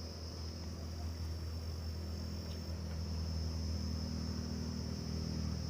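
Crickets chirring steadily in the background over a low, steady hum.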